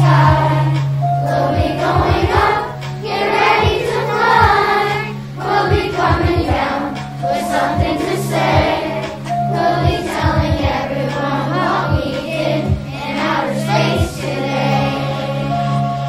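Children's choir of elementary-school pupils singing in unison over an instrumental backing track, with a steady sustained bass note and low beats under the voices.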